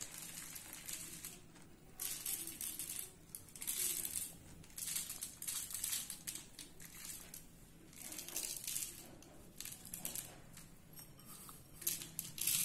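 Handfuls of sev, crisp fried gram-flour noodles, being crumbled and sprinkled over puris on a steel plate. It makes faint crackling rustles in short bursts, about one a second.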